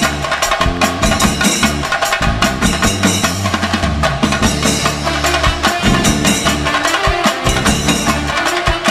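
Percussion-heavy music: rapid, dense drumming over a steady bass line that changes note every second or so.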